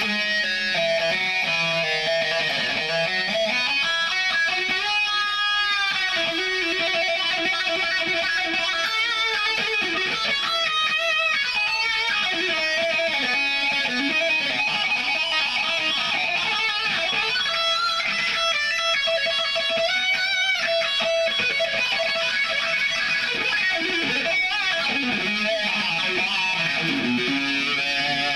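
Ibanez Jem 70V electric guitar with DiMarzio pickups played through a heavy, distorted Line 6 POD HD500 patch with Greenback speaker models, into a Laney LX120R Twin combo. It plays a continuous lead line with bent notes and vibrato.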